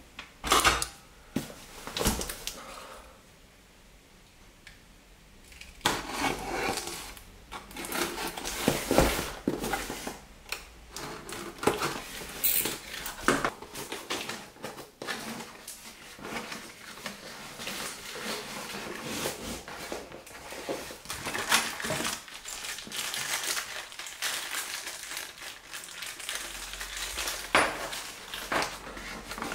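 A cardboard box being handled and opened by hand: a few knocks and taps, then from about six seconds in a steady run of cardboard scraping, rustling and crinkling as the flaps are worked open.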